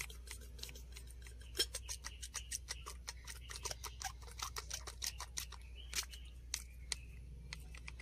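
Rapid, irregular light clicking, several clicks a second, over a low steady hum.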